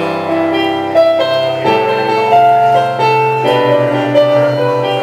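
Electric stage piano playing chords, the notes held and changing every second or so, as the introduction to a song.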